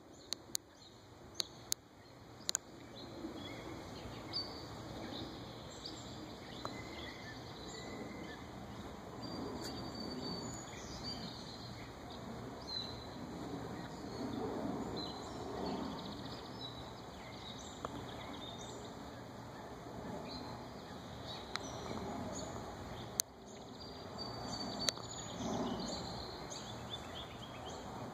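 Outdoor ambience of small songbirds chirping and singing, over a low, uneven rumble of background noise. A few sharp clicks stand out near the start and again about 23 seconds in.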